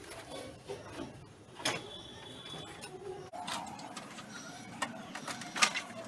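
Scattered light clicks and knocks of hands working motorcycle headlight parts, with a sharper click about a second and a half in and a few more near the end.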